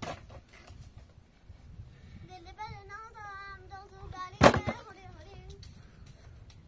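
A child's high voice sings a wavering tune for about three seconds, from about two seconds in. Partway through there is one sharp knock, the loudest sound.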